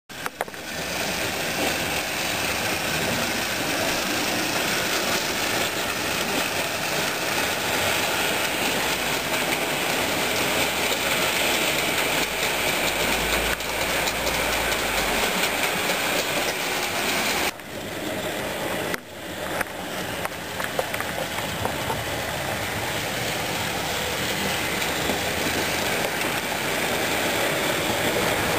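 Model railway trains running on the layout: a steady whirr of small electric locomotive motors and wheels on the track. It dips briefly twice about two-thirds of the way through.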